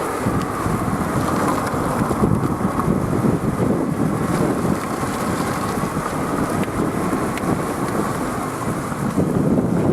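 Strong wind buffeting the microphone, a steady low rumble that rises and falls in gusts, over the rush of sea surf on a rocky shore.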